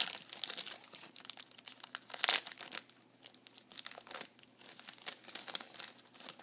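A trading-card pack wrapper being torn open and crinkled by hand, a dense run of crackling with the loudest rip a little past two seconds in.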